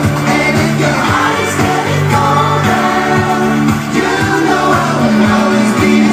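Several male voices singing together over an amplified live pop band with a steady beat.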